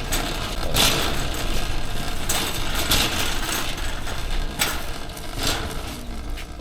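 Continuous rattling, clattering noise with several louder swells: about a second in, around two and a half to three seconds, and near four and a half and five and a half seconds.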